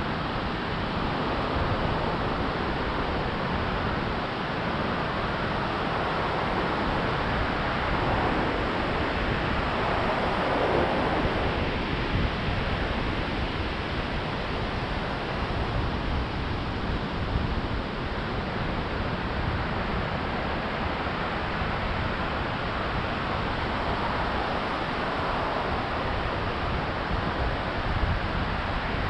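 Pacific Ocean surf breaking steadily on a wide sandy beach, a continuous wash of waves, with wind buffeting the microphone.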